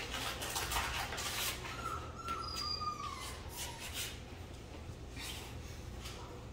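A Beauceron puppy whining, with one thin drawn-out whine that falls slightly in pitch about two seconds in, among footsteps and knocks on a tile floor.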